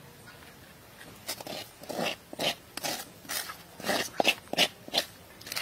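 Cooked noodles being tipped from a metal bowl onto a pile in a metal tray: a quick run of short, noisy strokes, about two or three a second, beginning about a second in.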